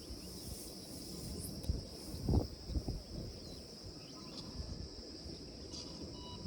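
Insects, likely crickets, chirping in a steady high drone over low rumbling noise, with a dull thump about two and a half seconds in.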